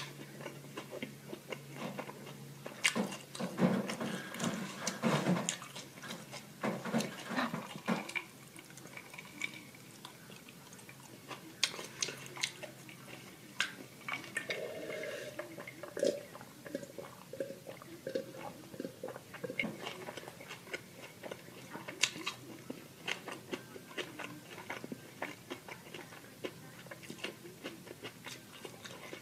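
Close-miked chewing and eating sounds: irregular soft crunches and wet mouth clicks.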